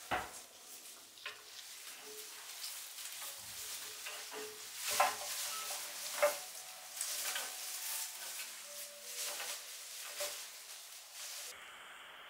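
Crackling, rustling handling noise with many scattered clicks and knocks, the loudest about five and six seconds in.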